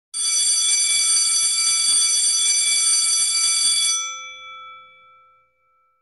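Electric bell ringing continuously for about four seconds, then stopping, with its gong ringing out and fading over the next second.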